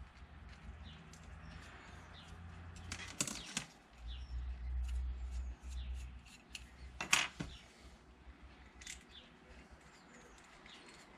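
Faint clicks and rustling of multimeter test leads and crocodile clips being handled, unclipped and clipped onto wires, with a low rumble for a couple of seconds near the middle.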